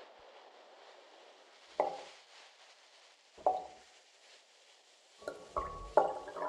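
Hand-made sound effects of small hard objects being struck: sharp knocks or clinks with a short ringing tone. There are two single strikes a second and a half apart, then four in quick succession near the end.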